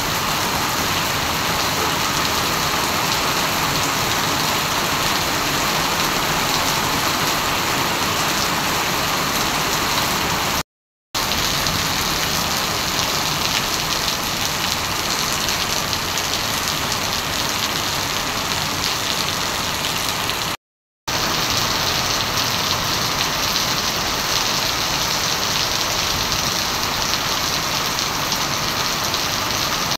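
Heavy tropical rain falling steadily on a wet paved street, an even, unbroken hiss of rain. It cuts out to silence for a split second twice, about 11 and 21 seconds in.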